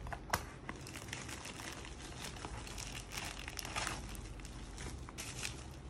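Scissors snipping through a white mailer bag in short crisp cuts, then around the middle the packaging crinkling and rustling as it is pulled open.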